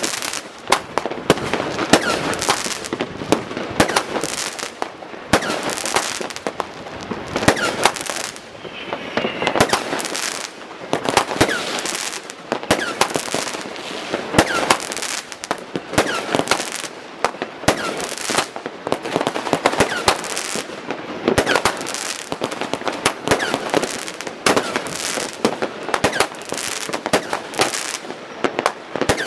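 Fireworks rockets and firecrackers going off continuously in a dense, irregular barrage of bangs and crackling, with a brief whistle about a third of the way in.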